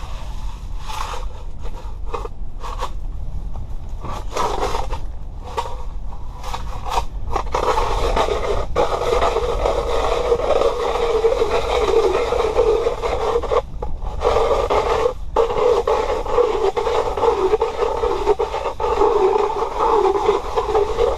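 Ice auger cutting into the ice: a few scratchy strokes, then a steady grinding scrape that builds and holds, breaking off briefly twice near the middle. A low wind rumble on the microphone sits underneath.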